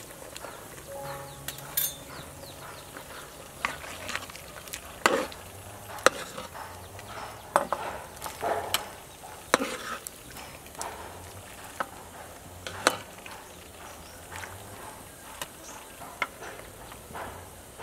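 Ladle stirring and scooping in a pot of simmering pork rib soup, with a dozen or so sharp clinks and knocks against the metal pot and a ceramic bowl over a steady faint bubbling.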